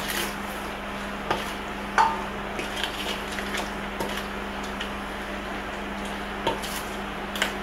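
Seasoned lobster pieces being tossed and mixed by hand in a stainless steel bowl: scattered soft clicks and taps against the metal, the loudest knock about two seconds in. A steady low hum runs underneath.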